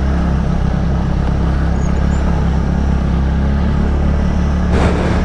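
TVS NTORQ 125 scooter's single-cylinder engine running steadily at a constant throttle while riding. A short rush of noise comes near the end.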